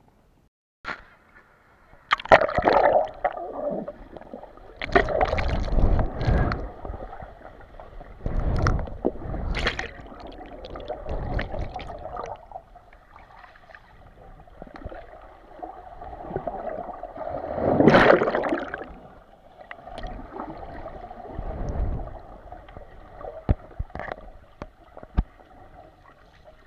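Swimming-pool water sloshing and gurgling, picked up by an action camera under water, in uneven surges of splashing.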